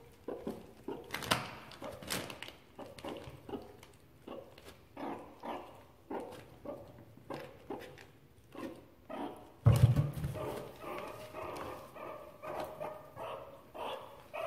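Meerkats giving a run of short chirping calls, a few a second, while nosing through crinkling plastic bags. The calls get louder and more continuous about ten seconds in.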